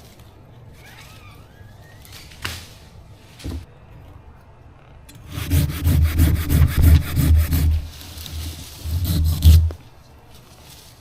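Hand pruning saw cutting through basswood in quick back-and-forth strokes: a run of about two seconds, a brief pause, then a second, shorter run.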